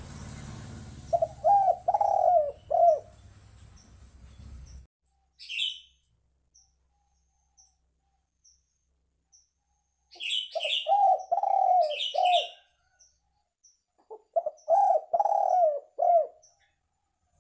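Spotted dove (tekukur) cooing: three phrases of four or five low notes each, one about a second in, one a little past the middle and one near the end. A small bird chirps higher up about 5 seconds in and again during the second phrase.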